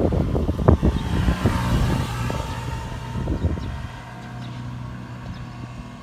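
A loud, uneven low rumble that dies down after about three seconds, with a few faint Eurasian tree sparrow chirps above it.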